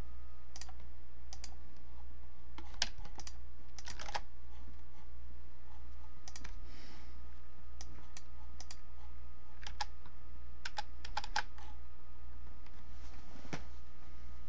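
Typing on a computer keyboard: irregular keystrokes, scattered singly and in quick clusters, over a steady low hum.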